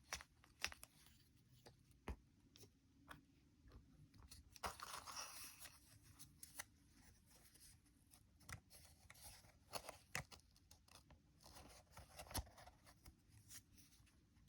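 Paper being folded and creased by hand: faint scattered crisp taps and creases, with a longer paper rustle about five seconds in and another near the end.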